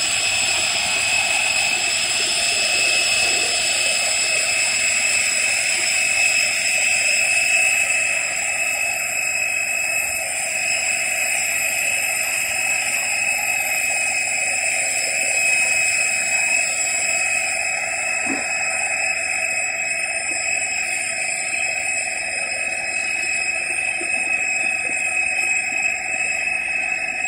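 Steady high-pitched whine of a jet airliner's turbine on the apron, over a rushing noise.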